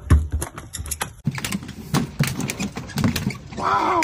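A freshly landed mahi-mahi flopping on a boat's fibreglass deck, its body and tail slapping in a quick, irregular run of sharp taps. A short call falling in pitch comes near the end.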